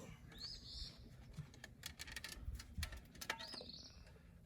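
Faint outdoor bird chirps, two short arched calls, among light scattered clicks and a few soft low thumps.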